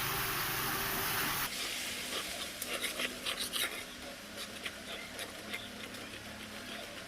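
Loud hissing from a pan of frying onion-and-spice masala just after a little water is added. The hiss cuts off about a second and a half in, leaving lighter crackling and spitting as the masala fries down.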